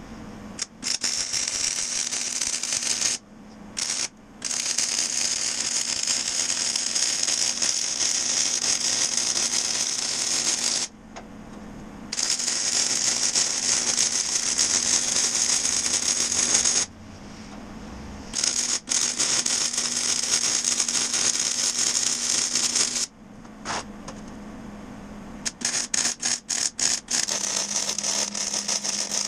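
MIG welding arc crackling as beads are laid in long runs of several seconds, with brief pauses between, then a quick series of short tack bursts near the end. A steady low hum carries on through the pauses.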